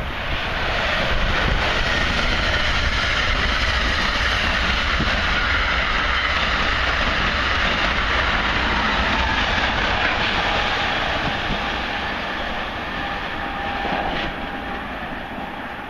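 Passenger train running past at speed: a steady, loud rush of wheels on rail and air that swells about a second in and eases off after about ten seconds. A faint steady whine comes in during the later seconds.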